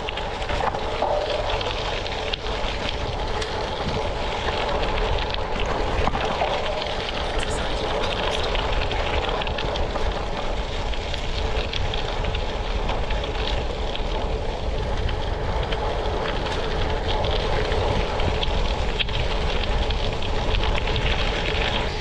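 Tyres rolling steadily over a gravel road, a continuous crackling crunch, with wind rumbling on the microphone.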